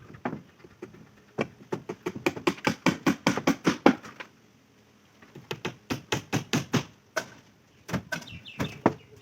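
A hammer striking nails into wooden shuttering, in quick repeated blows of about four to five a second, in three runs with short pauses between.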